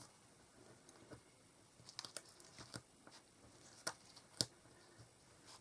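Faint handling noise of small craft materials: scattered light clicks and crinkles, a cluster of them about two seconds in and two sharper clicks near four seconds.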